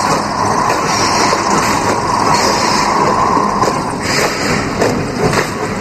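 Horror radio-drama sound effects: a dense, steady, noisy rumble with a held tone that fades about four seconds in.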